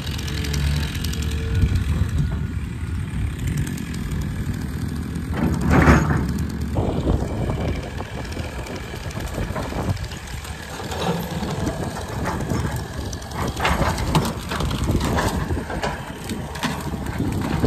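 Diesel engine of a Komatsu hydraulic excavator running steadily as the machine works, with scattered metallic clanks and knocks. A brief louder swell comes about six seconds in.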